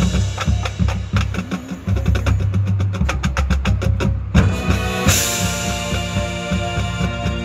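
Marching band with drums and front-ensemble percussion playing a run of unison strikes that speeds up. After a short break comes a hard hit, then a cymbal crash about five seconds in, and the band holds a sustained chord.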